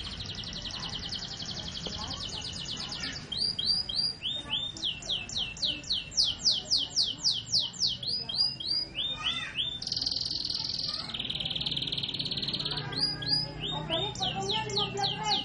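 Canary singing: a fast trill, then a loud run of quick downward-sweeping whistled notes, about four a second, followed by short rolling trills and more sweeping notes near the end.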